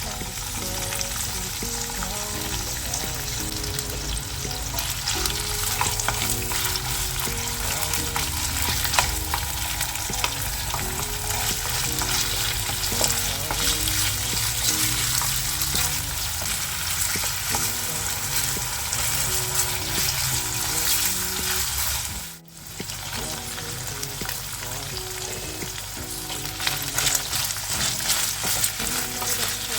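Food sizzling and crackling in hot oil in a frying pan while it is stirred, with a brief break about 22 seconds in.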